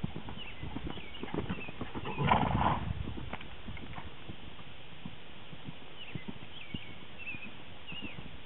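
Horse cantering loose on sand: irregular muffled hoofbeats, with one loud, short cry from the horse a little over two seconds in.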